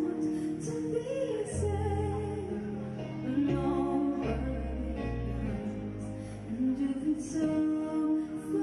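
A woman singing a pop ballad into a microphone over an instrumental backing track. Her voice slides between long held notes while the bass notes change underneath.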